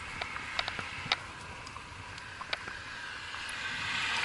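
Horse's hooves striking the asphalt road in irregular sharp clicks, with a car's tyre and engine noise swelling as it comes closer near the end.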